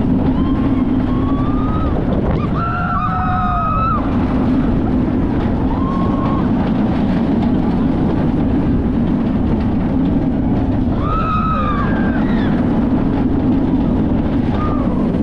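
Steady rumble of a moving amusement-ride vehicle with wind buffeting the microphone. A few voices call out in long rising-and-falling cries, the clearest about three seconds in and again about eleven seconds in.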